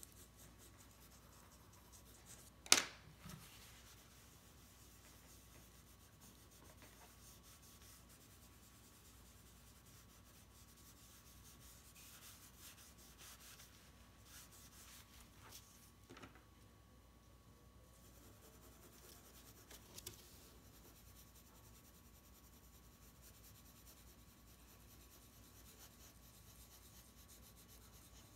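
Faint graphite pencil shading strokes on drawing paper, with a stretch of tissue rubbing over the paper to blend the graphite about halfway through. A single sharp tap about three seconds in is the loudest sound.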